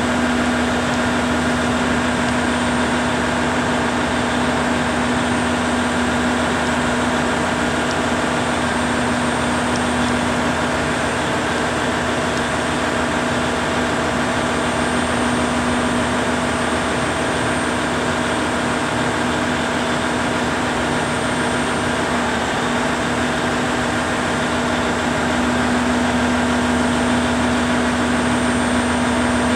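KiHa 25 diesel railcar standing with its diesel engine idling: a steady, unchanging hum with one constant tone.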